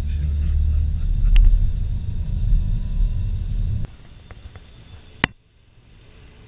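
Low road and engine rumble heard inside a car's cabin at motorway speed, which cuts off abruptly about four seconds in. After it comes a much quieter hiss with a single sharp click.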